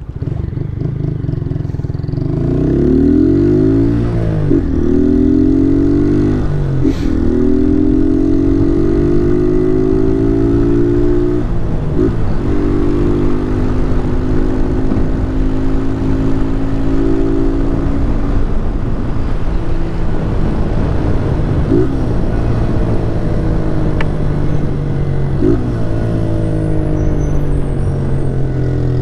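Honda 160 single-cylinder motorcycle engine pulling through the gears: the pitch climbs as it accelerates, with brief dips at gear changes about 4, 7 and 12 seconds in, then holds fairly steady at speed, with further quick dips at about 22 and 25 seconds.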